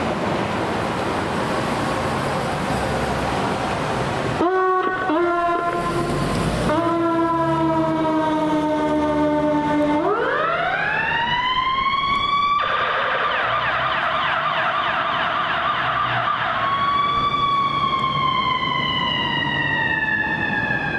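Ambulance engine running, then a few horn blasts ending in one long one. The ambulance's electronic siren winds up into a rising wail, switches suddenly to a fast yelp, then changes back to a slow wail that falls in pitch as the ambulance responds to a call.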